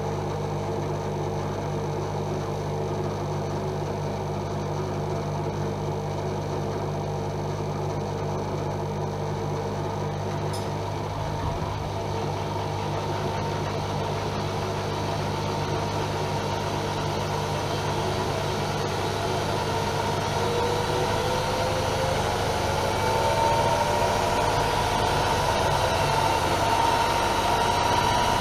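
AEG Öko-Lavamat Lavalogic 1600 washing machine running with a steady motor hum; from about two-thirds of the way through, a motor whine rises steadily in pitch and grows a little louder as the drum speeds up into a spin.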